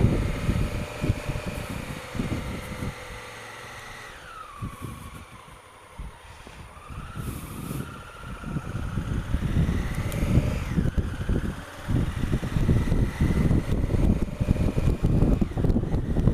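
Honda Africa Twin CRF1000L parallel-twin engine on the move, heard from a helmet-mounted camera with wind buffeting the microphone. The engine note falls as the bike slows about four seconds in, rises as it accelerates again, and drops sharply just after ten seconds. The wind rush grows louder in the last few seconds.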